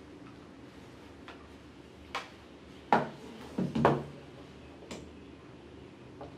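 Plastic clicks and knocks of a smartphone being handled and fitted into the phone clamp of a Moza Mini-S gimbal. The knocks are scattered, with the loudest around three seconds in and a quick cluster just before four seconds.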